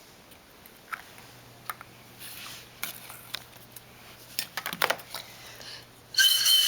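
Light clicks and rustles of small plastic toys and wrappers being handled, then near the end a short, shrill whistle: the signal to pick the next egg.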